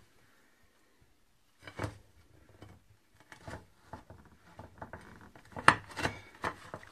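A long kitchen knife sawing through a hardened chocolate biscuit cake of butter biscuits layered in set coconut-fat chocolate, giving scattered crunching clicks. The cutting starts about two seconds in, and the loudest clicks come near the end.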